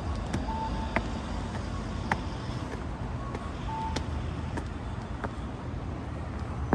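Road traffic on a city street: a steady low rumble, with a few short high beeps and scattered sharp clicks over it.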